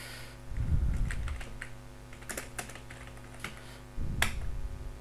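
Typing on a computer keyboard: separate keystroke clicks spaced irregularly, with a sharper click about four seconds in. A low rumble sits under it twice, near the start and again about four seconds in.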